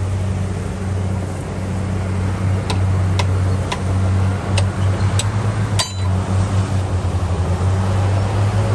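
Heavy earthmoving machine's diesel engine running steadily, its throb pulsing in the second half, with half a dozen sharp metallic clinks in the middle.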